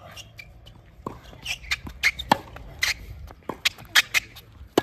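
Tennis rally on a hard court: sharp racket strikes on the ball, the sharpest near the end, among quick shoe scuffs and squeaks on the court surface.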